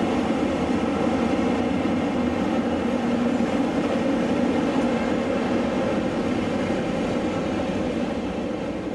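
Diesel locomotive engine running steadily, easing off slightly near the end.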